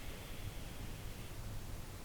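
Faint, steady hiss of a sleeping cat's breathing between snores, picked up close on a lavalier mic; the breath fades a little over a second in.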